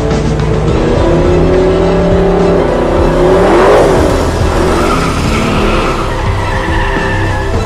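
Racing car engines running hard with tyre squeal. The engine note swells and falls in pitch, loudest a little under halfway, and a high squeal comes in over the second half.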